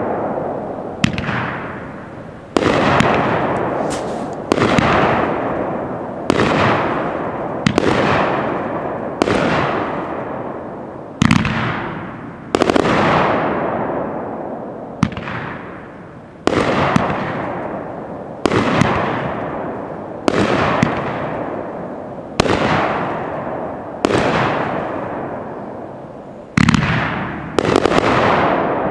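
A 500-gram, 25-shot consumer firework cake firing shot after shot, a sharp bang every second or two. Each bang is followed by a hissing tail that fades over a second or so.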